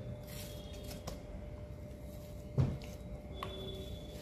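Thin membrane being peeled by hand off a raw liver on a wooden cutting board: faint wet handling sounds over a steady low rumble and hum, with a light click about a second in and a dull thump about two and a half seconds in.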